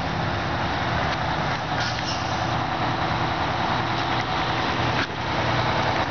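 Fire engine driving up close, its diesel engine running loud over a steady rush of noise.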